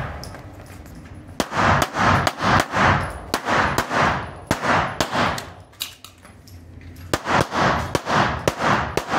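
Competition pistol fired in rapid strings, about three shots a second, each shot echoing briefly. A pause of over a second falls in the middle, between two runs of shots.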